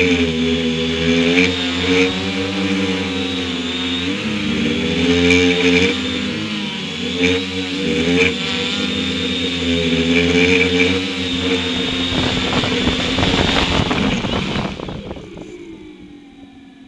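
Quadcopter's electric motors and propellers whining as heard from the craft's onboard camera, the pitch rising and falling with the throttle. A rough rushing noise builds as it comes down near the ground, then the motors cut about fifteen seconds in and spin down, falling in pitch, once it has landed.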